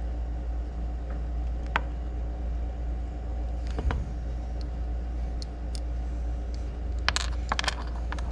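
A few light clicks of small metal pins and parts being handled on a workbench, more of them in quick succession near the end, over a steady low hum.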